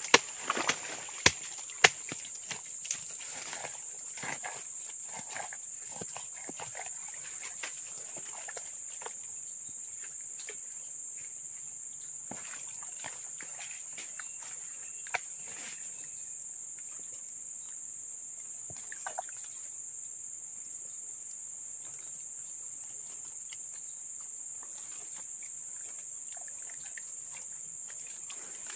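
A steady high chirring of swamp insects, with crackling rustles and a few sharp clicks in the first few seconds as hands dig into a muddy hole in dry leaf litter.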